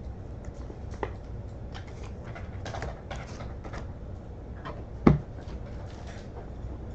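Baseball cards and plastic card savers being handled on a table: scattered light clicks and rustles, with one sharp tap about five seconds in, over a steady low hum.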